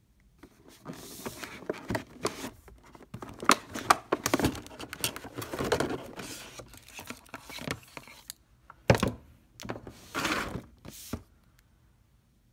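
A flat iron being handled in its black cardboard box and plastic tray, with irregular rustling, scraping and knocking of packaging, strongest around the middle.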